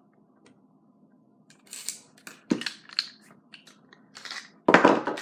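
Clicks and rattles of an airsoft M1911 pistol's metal and plastic parts being handled while the gun is taken apart. A louder, scraping burst comes near the end.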